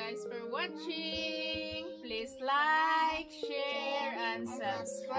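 A woman and young girls singing together, with soft background music underneath.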